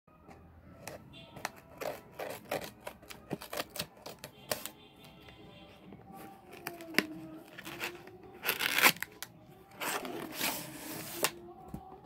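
A cardboard parcel box being handled and opened: a run of taps and clicks from hands on the box, then two longer ripping noises, at about eight and a half seconds and about ten seconds in, as the box is torn open. Background music plays under it.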